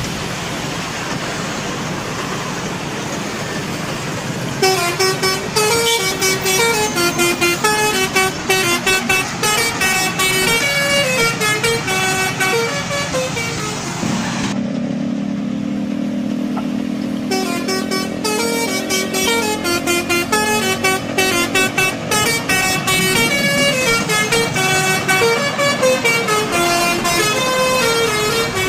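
Bus telolet horn playing a quick stepping tune of pitched horn notes over road and engine noise, beginning about five seconds in. Midway the tune gives way for about three seconds to a lower steady tone, then it starts again.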